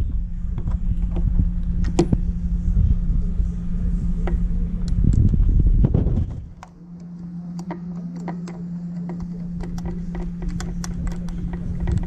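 Light metallic clicks and taps of a ratchet-strap buckle being handled and seated onto a bolt on a bracket, over a steady low hum and a low rumble. The rumble drops away about halfway through, and the clicks come thicker after that.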